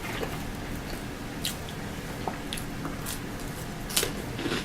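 A person chewing a mouthful of food close to the microphone, with a few soft clicks and smacks now and then over a steady low hum.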